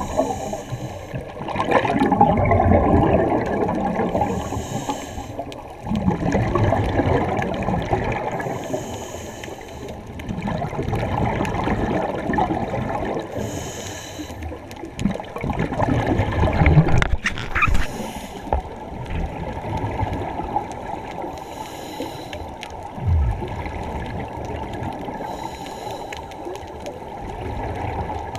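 Scuba diver breathing through a regulator underwater, heard close: a short hiss on each inhale through the demand valve, then a low bubbling rumble as the exhaled air escapes, repeating about every four seconds.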